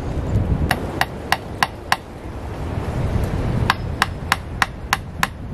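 A hammer striking in quick, even strokes, about three a second: a run of five strikes about a second in and a run of six more past halfway. Low wind rumble on the microphone runs underneath.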